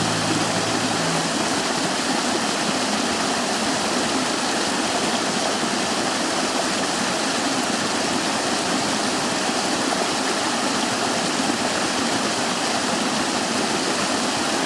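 Mountain valley stream rushing steadily over rocks, a continuous even wash of water noise.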